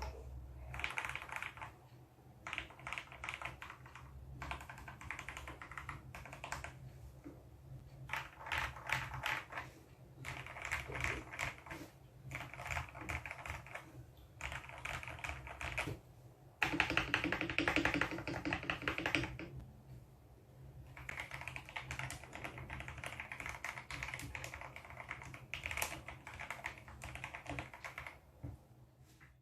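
Rapid typing on a Tes 68 mechanical keyboard: runs of fast keystroke clacks broken by short pauses. One run a little past halfway is louder and deeper than the rest.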